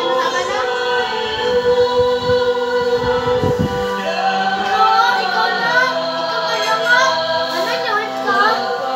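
Church choir singing a hymn, the voices holding long notes.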